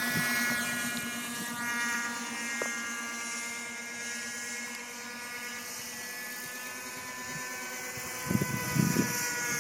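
Thunder Tiger Raptor 30 radio-controlled helicopter in flight, its small nitro (glow) engine and rotor making a steady high-pitched buzzing whine whose pitch wavers slightly.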